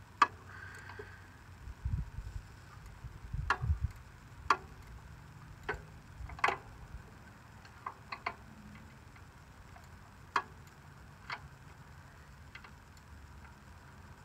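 Hand tools clicking and tapping against the parts of a riding mower as it is worked on: about ten separate sharp clicks at uneven intervals, with dull low thumps about two and three and a half seconds in.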